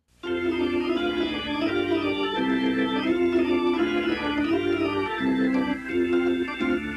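Background music played over an edit break: an organ-like keyboard holding chords that change every second or so, starting suddenly just after the talk stops.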